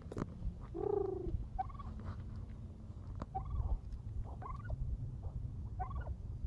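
Domestic turkey calling at close range: one drawn-out call about a second in, then a string of short clucks, over a steady low rumble.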